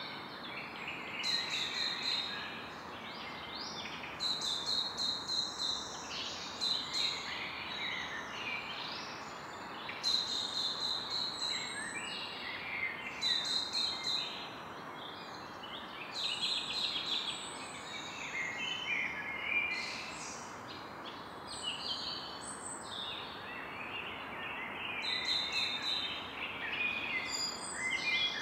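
Forest ambience in the evening: several birds singing and calling over one another in a continuous chorus of chirps and trills, over a steady background hiss.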